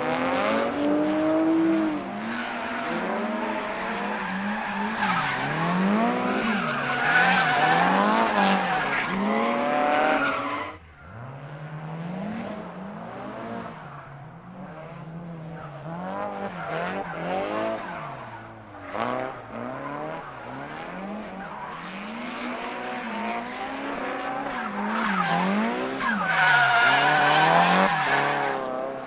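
Tuned, turbocharged Nissan Silvia S15 driven hard, its engine revving up and down every second or two, with tyre squeal loudest in the first ten seconds and again near the end. The sound breaks off abruptly about 11 seconds in, then picks up again with the same rising and falling revs.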